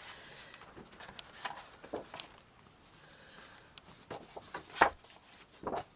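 Sheets and pieces of paper and card rustling and rubbing as they are handled, in scattered short strokes, with a sharper tap or snap about five seconds in.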